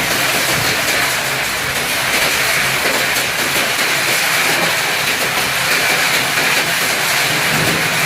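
Heavy rain with strong wind: a steady, loud hiss of falling rain with a low rumble of wind underneath.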